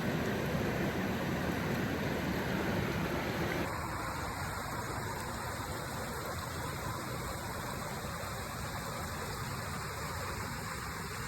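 Steady rushing of a mountain stream's water, dropping slightly in level and turning duller about four seconds in.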